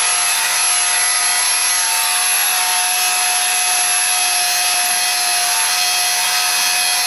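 Angle grinder with an abrasive disc grinding steel, running at a steady pitch: a constant whine over a rasping hiss that stops abruptly.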